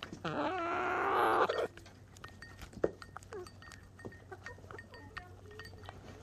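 A hen gives a loud, wavering squawk lasting about a second and a half near the start. Then chickens' beaks peck cheese grits from a plastic bowl in quick, irregular ticks, with a few soft clucks.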